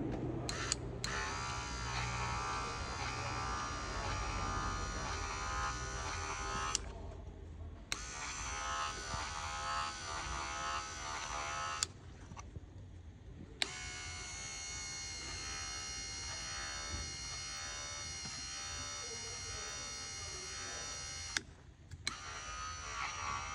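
A repaired Ford Focus power-window regulator motor, out of the door and wired to the harness, whining as it spins freely under test. It runs in four spells with short pauses between them and a click at most starts and stops. The long third run is quieter and steadier than the others.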